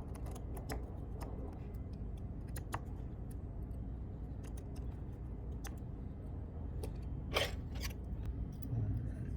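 Small scattered metallic clicks and ticks of tiny phone screws and a precision screwdriver being handled and set down, with two louder clicks about seven and a half seconds in. A low steady hum runs underneath.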